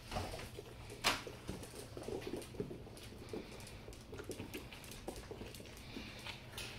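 Puppies and an adult dog moving about on a hard floor: scattered light taps of paws and claws, with one sharper knock about a second in.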